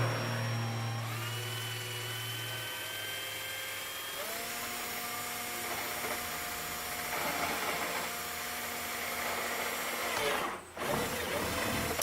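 Electric drill boring a bolt hole through a plastic kayak hull, its motor whine stepping up in pitch twice, then stopping briefly near the end and starting again.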